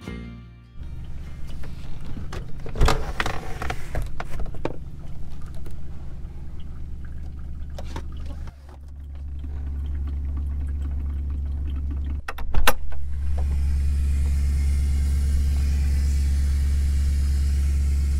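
Idling vehicle engine, a steady low hum. Several sharp clicks and knocks come through it, the loudest a little past halfway, after which the hum grows louder and a steady hiss joins it.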